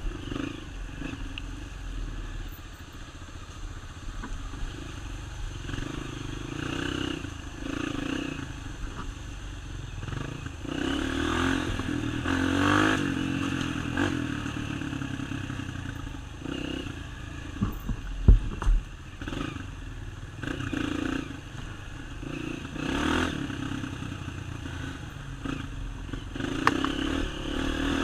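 Off-road motorcycle engine riding a dirt trail, revving up and easing off every second or two, with a few sharp knocks about eighteen seconds in.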